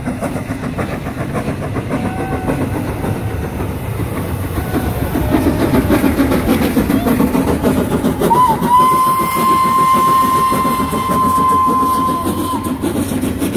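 Steam locomotive No. 461 passing close by with its coaches, a rapid beat of exhaust and wheels that grows louder as it nears. A little past halfway it blows its whistle, one long steady note lasting about four seconds.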